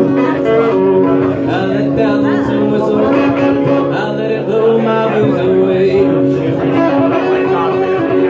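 A man singing and playing guitar live, a song with his own guitar accompaniment.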